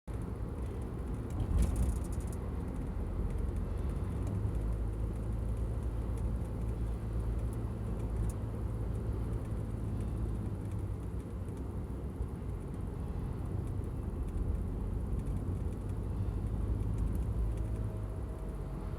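Steady low road and engine rumble of a moving car heard from inside the cabin, with a brief rattle about a second and a half in.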